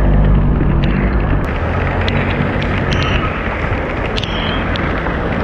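Heavy rain and wind noise on the microphone, with tyres hissing on the flooded road as cars pass close by. A low engine idle sits underneath at first and fades after a second or two, and scattered sharp ticks of raindrops hit the camera.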